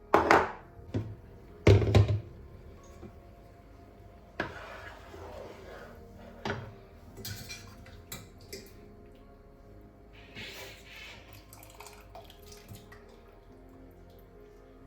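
Kitchen handling sounds during cooking: two loud knocks in the first two seconds, then lighter clinks and short stretches of water, over soft background music.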